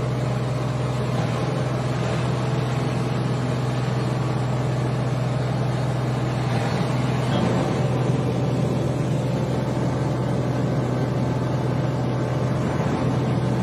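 Outboard boat motor running at a constant speed, a steady low drone, with water rushing and churning past the hull.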